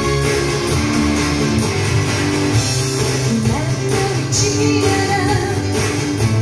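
Live pop-rock band with guitars and a woman's lead vocal, played back through JBL 4344 loudspeakers and picked up by a microphone in the room.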